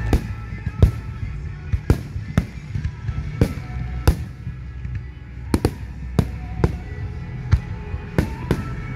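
Aerial firework shells bursting in an irregular rapid series of sharp bangs, more than a dozen in all, some coming in quick pairs, with music playing underneath.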